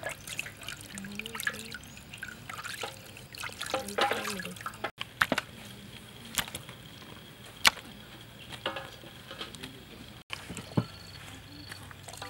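Water splashing and dripping in a metal basin as raw chicken pieces are washed and handled in it, with a few sharp knocks. The two loudest knocks come in the middle.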